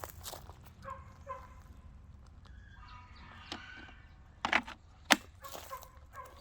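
Footsteps and a few sharp knocks, the loudest about five seconds in, with several short bird-like calls, like a chicken clucking, in between. The chainsaw is not running.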